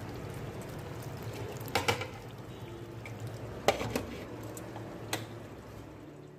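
Curry sauce simmering in a pan with a steady bubbling hiss, and a few sharp clinks of a glass lid against the pan, about two, four and five seconds in, as the pan is covered.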